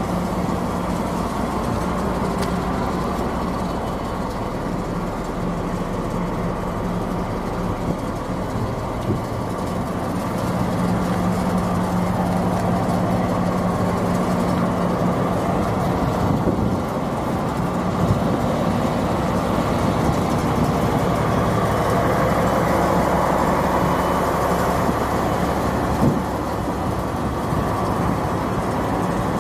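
DB class 218 diesel-hydraulic locomotive standing with its engine idling: a steady, even engine hum.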